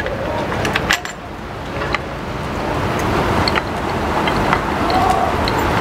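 A few small metal clicks and taps as a bolt and clamp are fitted onto a bicycle frame, over a steady rushing background noise.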